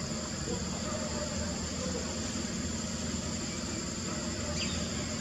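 Steady background ambience: a low hum like a distant engine idling, with a constant high-pitched drone over it.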